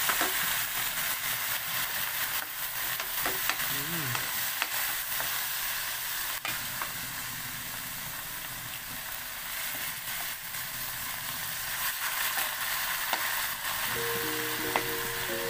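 Shrimp, garlic and onion sizzling in hot oil in a large metal wok, stirred with a wooden spatula that knocks and scrapes against the pan now and then. Music comes in near the end.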